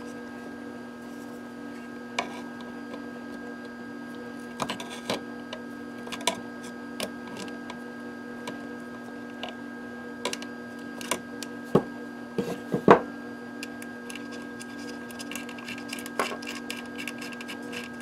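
Pliers clicking and tapping against the nut of a panel connector on a metal chassis: scattered sharp clicks, the loudest about two-thirds of the way in, then a flurry of small ticks near the end, over a steady electrical hum.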